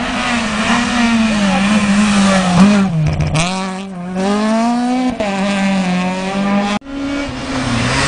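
Rally car engine running hard on a closed-road stage, its note rising and falling as it comes through the gears, then climbing again under full throttle. A sudden brief break comes about a second before the end.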